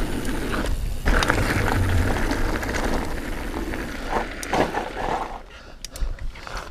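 Diamondback Release 3 mountain bike coasting downhill on gravel: steady tyre and wind rush with rear freehub clicking. The rush drops out briefly as the bike leaves the ground, and a knock about a second in marks the landing of a small jump. The rush dies down about five seconds in, leaving a few clicks.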